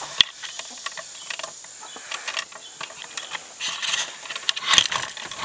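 Scattered clicks and knocks from the wooden chicken coop's screen door, latch and frame being handled on the way in. A sharp click comes just after the start and a duller knock near the end, over a steady high hum of insects.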